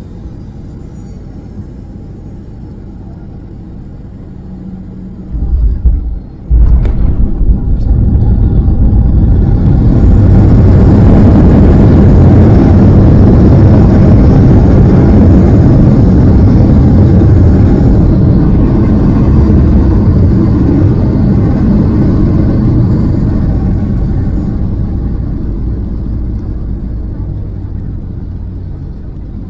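Airliner landing, heard from inside the cabin: a few thuds as the wheels meet the runway about six seconds in. Then a loud roar of engines and rumbling wheels builds, holds and slowly dies away as the plane slows on the runway.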